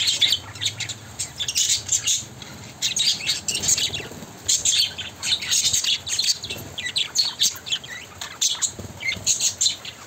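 Budgerigars chattering: a quick, steady stream of short high chirps.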